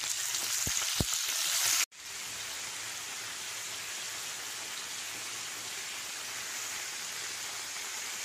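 Chicken pieces sizzling as they fry in hot oil in a frying pan, with two faint taps as pieces are set down just before a second in. The sound breaks off sharply about two seconds in and goes on as a steady, even sizzle from a full pan.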